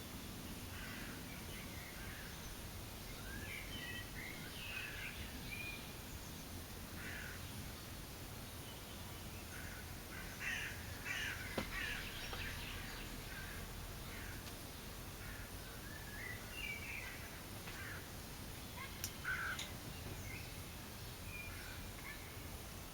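Wild songbirds calling and singing over faint outdoor background noise: short chirps and phrases scattered throughout. There is a louder, harsher burst of calls about halfway through and another near the end.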